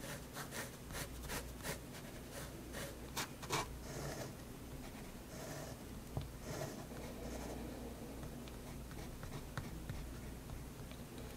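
Staedtler 0.3 mm pigment liner scratching on sketchbook paper: a quick run of short strokes in the first few seconds, then fewer, longer and softer strokes with a few light ticks of the tip.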